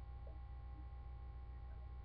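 Low steady electrical hum with a few faint steady high tones above it, and no clear event.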